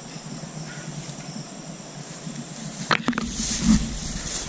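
Night insects, crickets, chirring steadily in a high tone. About three seconds in, a couple of sharp clicks, then a burst of rustling with a low rumble as the camera is pushed through tall grass.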